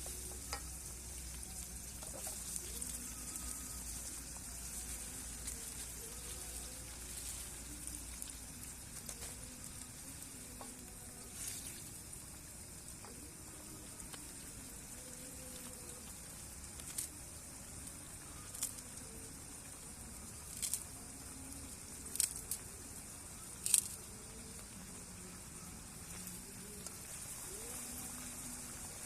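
Food frying in hot oil in a pan, a steady sizzling hiss with a few sharp pops in the second half.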